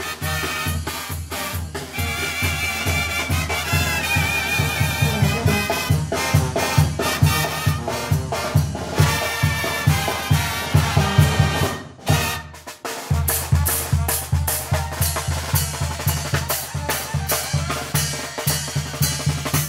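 Mexican banda music: brass with bass drum, snare and cymbal. It breaks off briefly about twelve seconds in, then comes back with a steady, quick drum beat.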